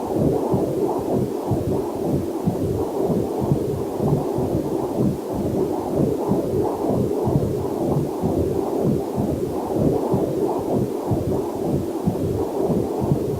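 Rapid whooshing heartbeat through a fetal Doppler monitor, an even pulse of about two and a half beats a second. A faint waterfall hiss is mixed in underneath.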